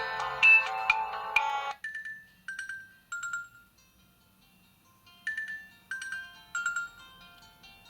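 Nokia 6300 4G ringtones playing through the phone's loudspeaker. A busy, dense melody cuts off about two seconds in. A sparser tune of separate ringing notes follows, pauses briefly in the middle, then picks up again.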